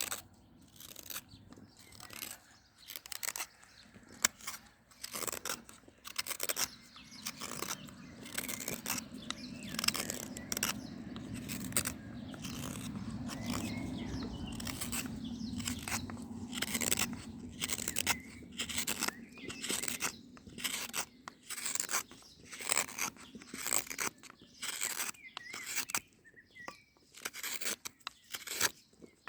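Olive wood being carved by hand with an edged tool: repeated short scraping cuts, about two a second, with a low steady hum under them through the middle stretch.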